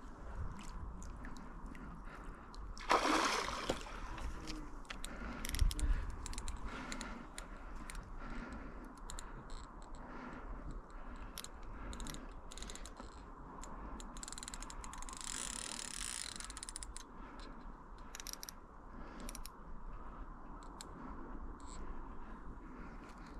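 A hooked carp being played on rod and reel: the reel's mechanism clicking on and off, and water splashing. The loudest splash is about three seconds in, with a heavy thump around six seconds.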